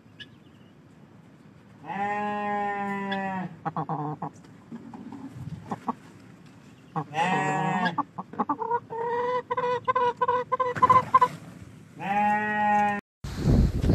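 Chickens calling: three long, drawn-out calls of about a second each with pauses between, and a steadier churring cluck with clicks between the second and third. Near the end a loud rushing noise cuts in.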